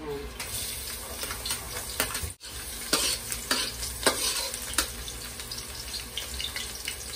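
Chopped garlic sizzling in hot cooking oil in a metal wok, starting about half a second in, while a metal spatula stirs it with scattered scrapes and taps on the pan.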